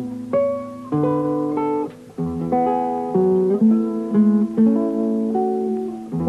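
Acoustic guitar music, plucked chords and single notes that ring and fade.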